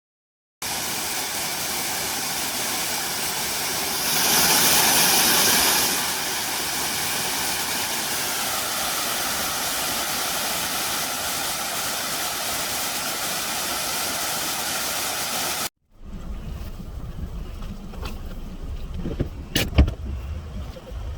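Steady noise of a moving motor vehicle, swelling louder for about two seconds around four seconds in. About sixteen seconds in it cuts to a lower, uneven vehicle noise with a few knocks and a brief tone.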